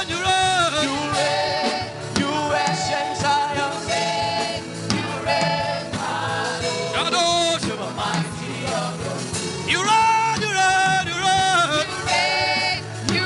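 Gospel worship music: voices singing over instrumental accompaniment.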